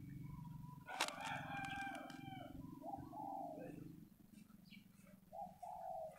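Faint village birds: a rooster crowing about a second in, then short cooing calls of doves, one near the end.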